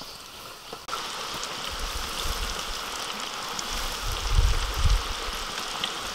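Hot oil in a wok sizzling as flour-coated pieces are deep-fried, the hiss starting suddenly about a second in and then holding steady. A few low thumps come through around two seconds and again around four to five seconds in.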